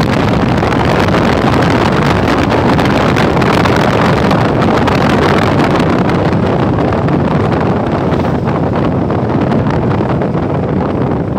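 Wind buffeting the microphone while riding a 2018 Yamaha NMAX 155 scooter at about 60 km/h: a loud, steady rush of riding noise that eases a little near the end as the scooter slows.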